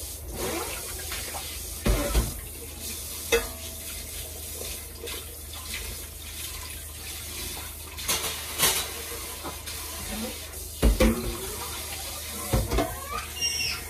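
Water running steadily, with occasional knocks and clinks of dishes and utensils.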